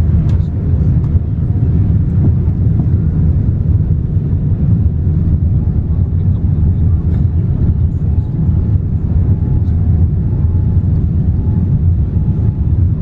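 Steady low rumble inside a Boeing 787-9 airliner's cabin as it taxis, with the engines running at low power.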